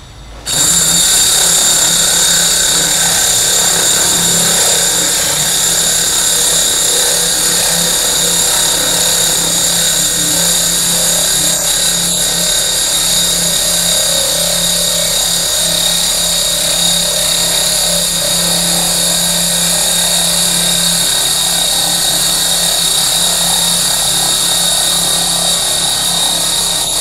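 Milwaukee M18 FUEL FPD3 (2904) brushless hammer drill on an 8.0 Ah battery, boring a core bit into a brick-and-mortar wall. It starts about half a second in and runs steadily under load, without a break.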